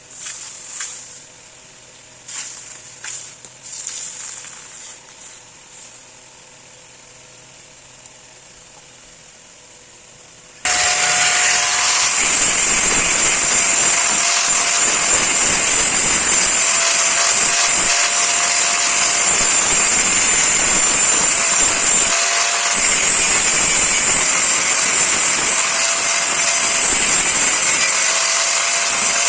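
A power grinder working steel: a loud, steady, hissing grind that starts abruptly about ten seconds in and keeps going. Before it, a few short knocks or scrapes sound over a quiet background.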